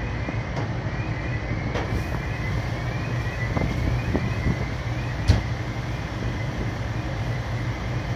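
Fire engine's diesel running steadily. A faint rising electronic chirp repeats two or three times a second over it, and a sharp knock sounds about five seconds in.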